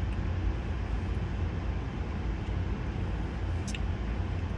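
Steady low rumble of a car's cabin, with a single brief click about three and a half seconds in.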